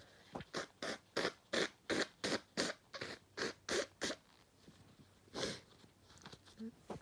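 A woman sniffing in quick short bursts, about three a second, for about three and a half seconds. After a pause comes one longer sniff, as she works on bringing on a sneeze.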